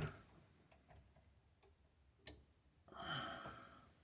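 Wire snips clicking faintly as they work on a copper wire, with one sharp snap a little over two seconds in; the snips are not cutting cleanly. A frustrated sigh follows near the end.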